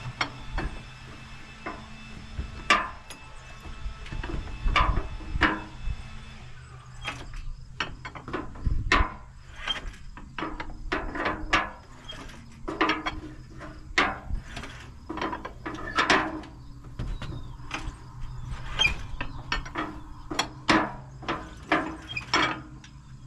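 Hand crank turning over a 1947 Case VAC tractor's engine: repeated clunks and clicks, about one or two a second, as the crank is pulled through. The engine does not fire, being really low on compression.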